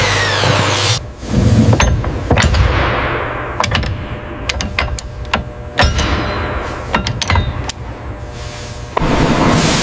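A steady, loud rushing noise cuts off about a second in, followed by a string of irregular sharp knocks and clanks over a low rumble as parts are handled and struck; the loud steady noise starts again near the end.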